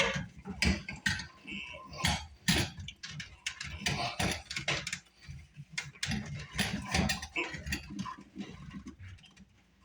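PVC drain pipe and P-trap fittings being handled and pushed together, giving irregular plastic clicks and knocks.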